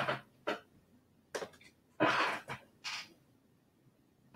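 A person's breathing and mouth noises close to the microphone: a handful of short, noisy puffs like sniffs or exhales, the loudest about two seconds in.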